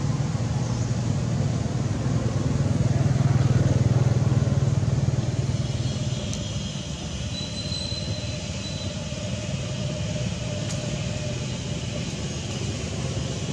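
Motor vehicle engine hum that swells to its loudest a few seconds in, then fades to a steady low drone, as of a vehicle passing by.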